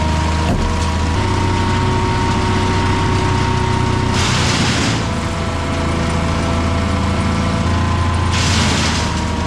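Vermeer 1600A woodchipper running steadily at a constant speed, with two short bursts of rushing noise about four and eight and a half seconds in.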